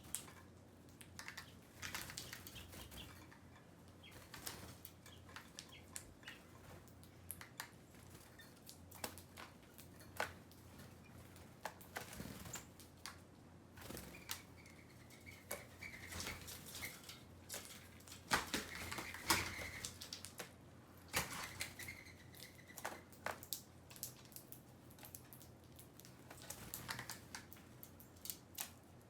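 Small birds feeding at seed, making irregular sharp pecking clicks and wing flutters, with a few short high calls in the middle.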